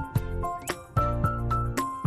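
Background music: a melody of short held notes changing about every half second over a bass line, with sharp percussive ticks.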